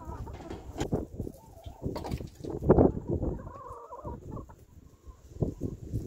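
Domestic hens clucking as they gather at their feeder and drinker, with uneven gusts of wind buffeting the microphone, the strongest about three seconds in.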